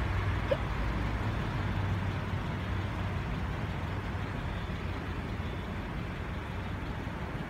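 Steady low rumble of an idling motor vehicle engine with street traffic noise.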